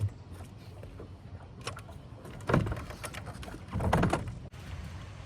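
Handling noise in a small aluminium fishing boat: a few short bumps and rustles, the loudest two about 2.5 and 4 seconds in, over a steady low rumble.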